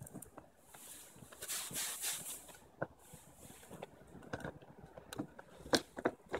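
Faint clicks and handling noise of small screws being turned in by hand with a small tool into an IKEA Kvartal curtain track part, with a soft hiss about two seconds in and two sharper clicks near the end.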